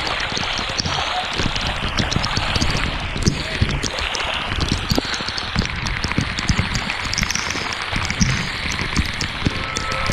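Heavy rain pouring onto floodwater: a dense, loud hiss peppered with many sharp taps of drops striking close to the microphone.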